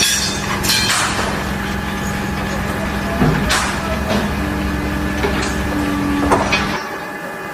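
Steady machine hum with a low rumble, broken by a few sharp knocks. The hum cuts off suddenly near the end.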